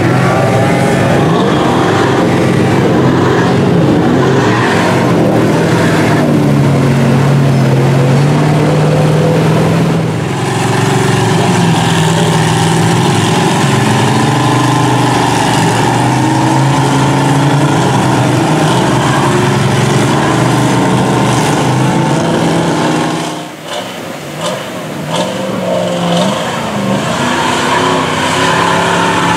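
Mud-bog vehicle engines revving in deep mud and water. About ten seconds in, a big engine settles into a steady pull under load as a monster mud truck tows a stuck pickup; near the end a lifted Chevy Avalanche's V8 revs up and down as it churns through the mud.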